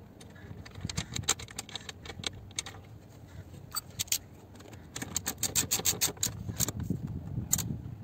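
Metal parts clinking, then a hand ratchet clicking in quick runs as the seat belt buckle's mounting bolt is driven into the steel seat frame.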